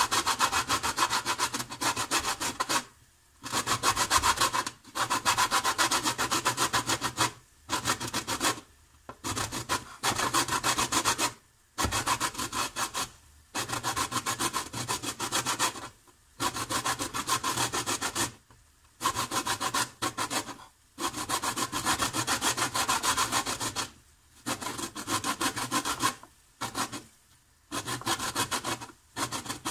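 A lemon being grated on a stainless-steel box grater: quick rasping strokes of the peel over the metal teeth, in runs of one to three seconds broken by short pauses.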